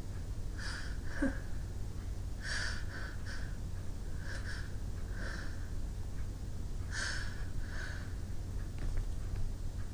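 A woman sniffing through her nose in short runs of two or three sniffs, every couple of seconds.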